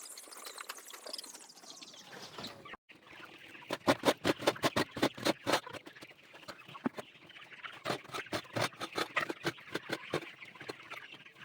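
A flock of broiler chickens making many short, sharp clucking calls, densest a few seconds in. Before that there is a steady dry hiss, which breaks off at a cut.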